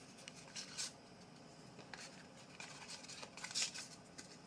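Faint handling noise of cardboard trading cards being slid and shuffled by hand, with two brief scrapes, about a second in and again near the end.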